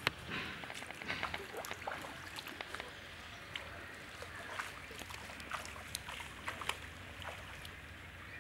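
Splashing footsteps through shallow muddy water, with many short, irregular clicks and cracks.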